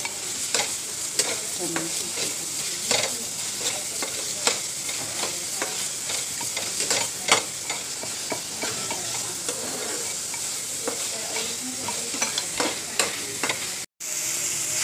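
A spoon stirring paneer in masala and water in a bowl, clinking against the bowl at irregular moments over a steady hiss. Near the end the sound drops out for an instant, then peas frying in a pan.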